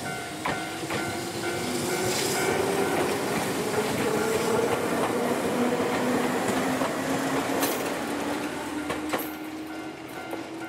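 Two-car electric train of the Ryutetsu Nagareyama Line passing over a level crossing. Its motor whine rises and then falls as it goes by, with clicking from the wheels on the rails. The crossing's warning bell dings steadily at the start and again near the end.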